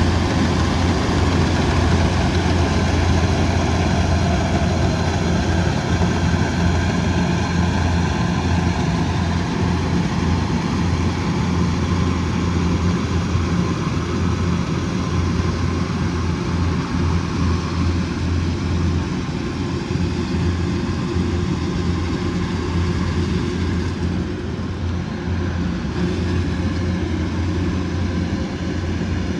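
Combine harvester's diesel engine running steadily with a deep, constant hum, easing off a little in loudness in the last third.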